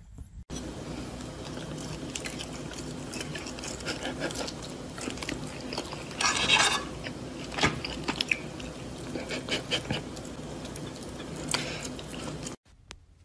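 Fork and knife clicking and scraping on a dinner plate, with chewing, over a steady low background hum. The sound starts abruptly about half a second in and cuts off just before the end.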